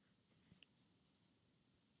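Near silence: room tone, with one faint short click about half a second in.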